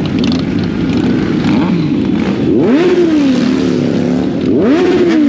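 A pack of sport motorcycles idling and creeping along together, with one engine revved twice, its pitch climbing quickly and sinking back each time.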